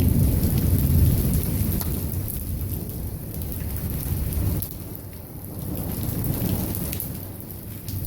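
Torrential rain pouring down, with a low rumble of thunder that eases about halfway through, swells again briefly and dies away near the end.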